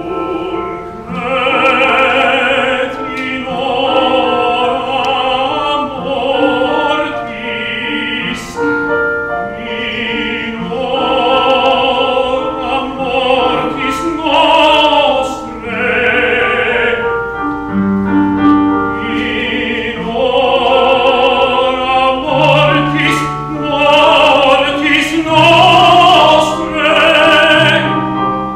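A male classical singer sings in operatic style, holding long notes with vibrato and pausing every second or two between phrases, with piano accompaniment.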